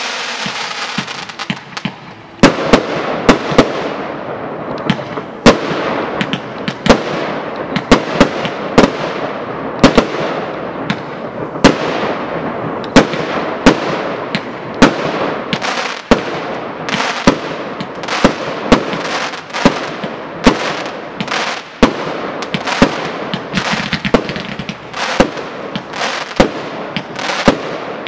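Fireworks display. A steady hiss fades over the first two seconds, then aerial shells burst in a long, steady run of sharp bangs, one or two a second, with crackling and hissing between them.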